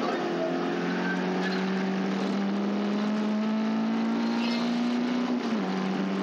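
Caterham Seven race car engine pulling hard, its note climbing slowly and steadily, then dropping a step about five and a half seconds in as it shifts up a gear.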